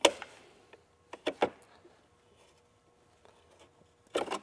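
Utility knife blade slicing through a Kawasaki Brute Force 750's plastic fender in short strokes. There is a sharp crack at the start, three quick cuts about a second in, and a longer cutting stroke near the end.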